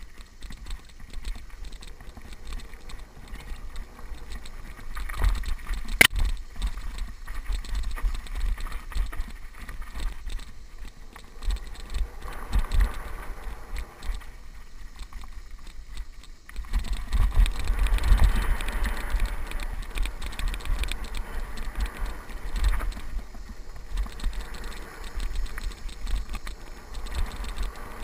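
Mountain bike riding over a rough dirt trail, heard from a camera on the rider: tyres on dirt, the bike rattling over bumps, and wind rumbling on the microphone. There is a sharp knock about six seconds in, and the noise gets louder from about two-thirds of the way through.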